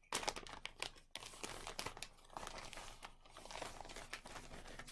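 Zip-top plastic bag crinkling and rustling as it is pulled open and a bundle of dyed wool fibre is drawn out of it.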